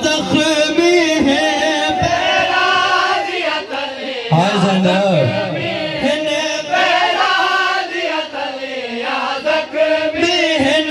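A man chanting a noha, a melodic Shia mourning lament, in long held and wavering lines sung into a microphone, with other men's voices joining in.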